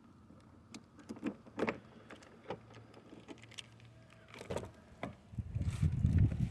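Scattered clicks and knocks, then about five seconds in the Acura TL's V6 engine comes up loudly with an uneven low rumble. It is running on three cylinders because of bad injectors.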